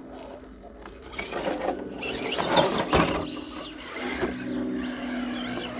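An RC rock crawler's electric motor and geared drivetrain whining, the pitch rising and falling with the throttle, with a sharp knock about three seconds in.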